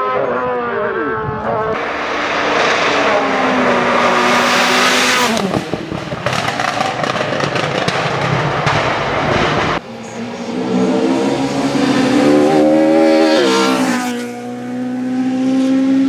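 Race car engines at full throttle passing by, the pitch climbing and falling sharply at gear changes. An abrupt cut about ten seconds in switches to another car accelerating, with an upshift near the end.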